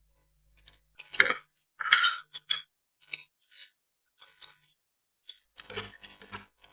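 Close-miked eating of spicy noodles: irregular wet mouth smacks and chewing sounds, with a quicker run of chewing near the end.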